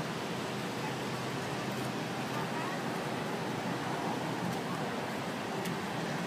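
Steady murmur of a crowd talking, blended with street noise, as a marching band walks past without playing.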